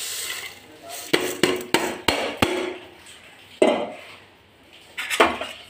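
Metal vessel knocking and clinking against the rim of a pressure cooker as drained rice flakes are tipped in: a quick run of sharp metallic knocks with a short ring, then two louder single knocks.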